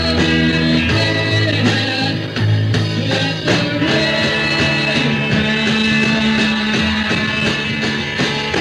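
A rock band playing live, with sustained bass notes that shift every second or so under guitar and drum hits.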